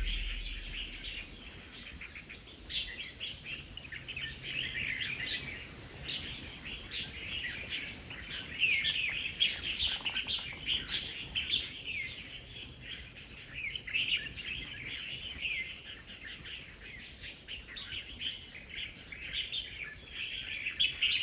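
A chorus of forest birds chirping and calling from the tree canopy, with many short, overlapping calls.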